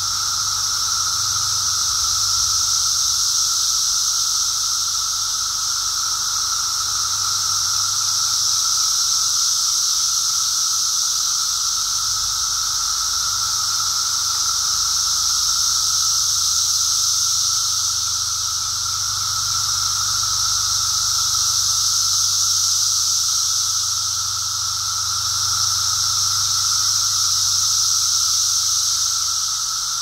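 Chorus of Brood X periodical cicadas: a loud, continuous drone with a lower steady whine and a high buzzing hiss above it, swelling and fading in slow waves every several seconds.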